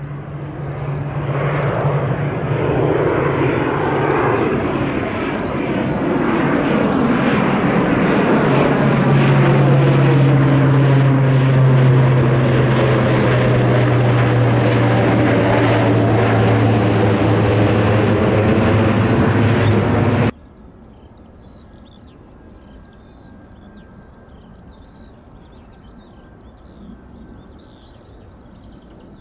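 Aircraft engines from a plane passing close, growing louder over the first several seconds, with a strong steady low drone under the engine noise. The sound cuts off abruptly about twenty seconds in, leaving only faint outdoor background.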